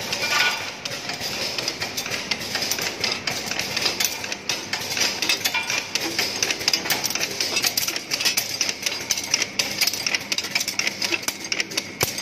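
RS-907UK axial-lead resistor cutting and kinking machine running, its wheels cutting, bending and kinking the leads of taped resistors with a fast, irregular clatter of sharp clicks.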